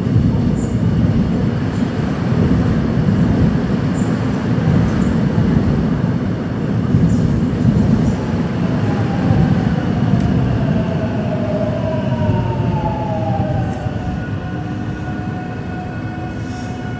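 Seoul Subway Line 7 second-batch electric train pulling into the station: a loud rumble of wheels on rail. From about nine seconds in, a whine of several tones falls in pitch as the train slows, and the rumble fades toward the end.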